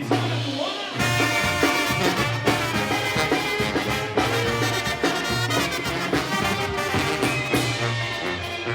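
Mexican banda brass band playing: tuba holding steady bass notes under trumpets and trombones, with a regular beat.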